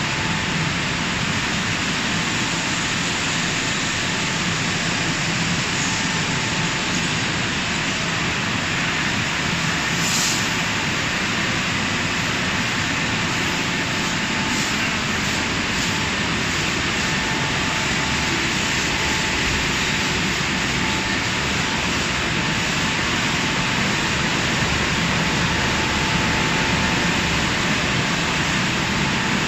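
Tunnel car wash machinery running: a steady, loud rushing noise of water spray and motors, with a brief high hiss about ten seconds in.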